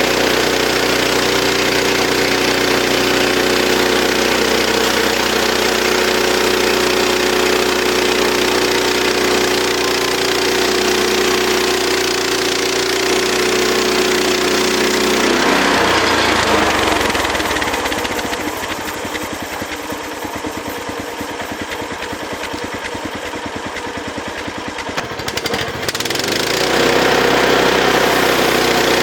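Engine of a portable sawmill running steadily. About halfway through it turns quieter with a rapid, even pulsing for several seconds, then picks back up to its steady run near the end.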